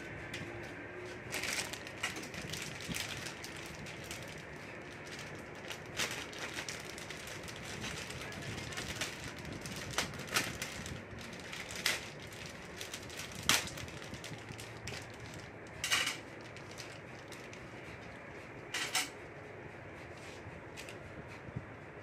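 Food-handling clatter: scattered sharp clicks and taps from a knife, butter paper and a plastic bread bag, with brief crinkling rustles of the bag, over a steady low hiss.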